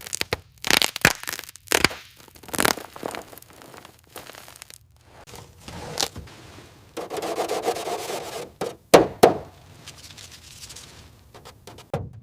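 A run of irregular scrapes, rubs and sharp knocks from hand work, with a longer rasping scrape about seven seconds in and a loud knock about nine seconds in.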